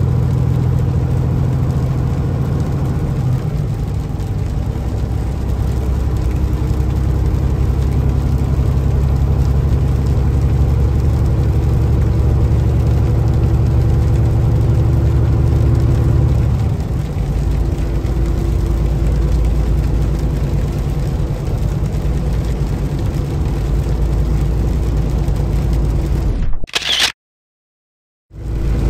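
Semi truck's engine and tyres on a wet highway heard from inside the cab: a steady low drone, whose engine note changes about two-thirds of the way through. Near the end comes a brief sharp noise, and then the sound cuts out for about a second.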